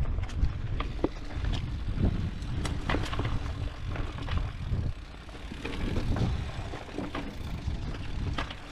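Mountain bike riding down a dirt trail: a steady low rumble from the tyres and frame, with scattered clicks and knocks as the bike rattles over bumps.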